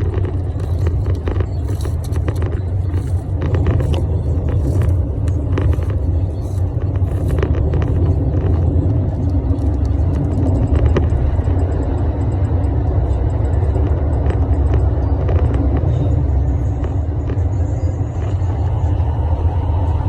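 Steady low rumble typical of a moving car's cabin, with short rustling clicks through roughly the first half.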